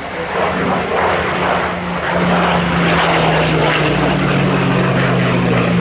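Hawker Hurricane Mk IIc's Rolls-Royce Merlin V12 engine and propeller droning steadily in a display pass, growing louder about two seconds in.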